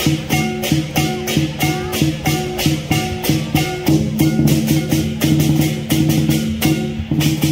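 Music with a steady fast beat, about four strokes a second, over a plucked bass line.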